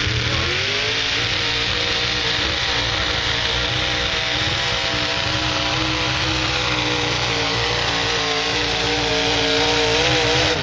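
Pickup truck engine running hard at high revs while dragging a weight-transfer pulling sled. Its pitch climbs in the first second, then holds steady, wavering slightly near the end.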